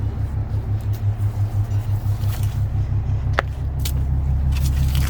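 A low engine hum that pulses rapidly, about six times a second, then turns steady about three and a half seconds in, with a sharp click just before the change.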